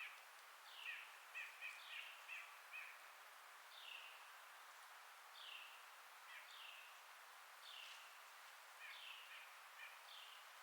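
Forest birds calling: short downward-slurred notes repeated about every one to two seconds, with quick clusters of chirps near the start and again near the end, over a steady hiss of wind in the leaves.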